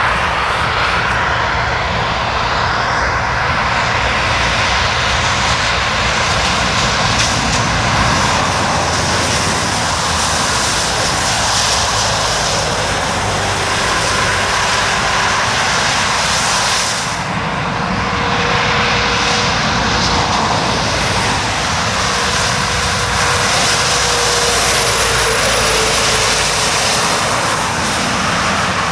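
Lorries and cars passing on a wet road: a steady hiss of tyres through spray over the low drone of diesel engines.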